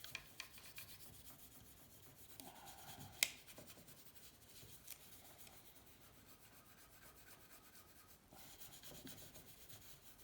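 Faint rubbing and handling noises with scattered light clicks and one sharper click about three seconds in; no power tool running.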